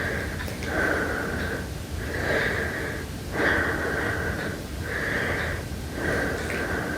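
A person breathing heavily: a steady run of noisy breaths, a little more than one every second.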